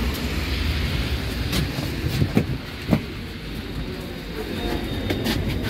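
Low street rumble and the rustle of coats in a crowd shuffling through entrance doors, with a few knocks. After a sharp knock about three seconds in, the rumble drops.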